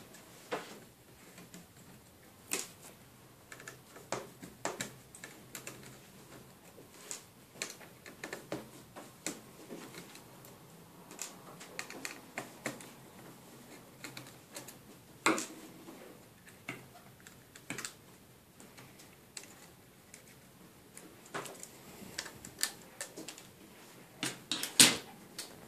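Irregular small clicks and taps of a screwdriver and small metal and plastic parts being handled as the four screws holding the sat-nav LCD are undone, with a sharper knock about 15 seconds in and a louder pair just before the end.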